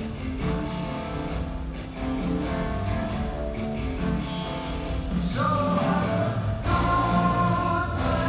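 Live rock band playing on an arena stage, led by electric guitar with sustained held notes over bass and keyboards, heard from the audience.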